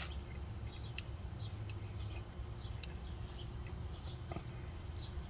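Quiet outdoor background: scattered faint bird chirps over a steady low hum, with a few light clicks.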